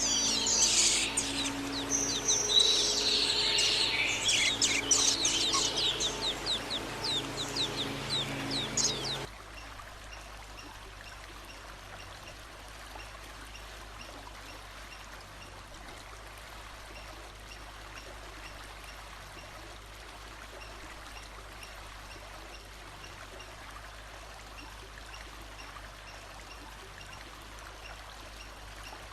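A songbird singing a rapid run of varied chirps and quick falling trills over running water. The song cuts off abruptly about nine seconds in, leaving only the steady rush of a stream.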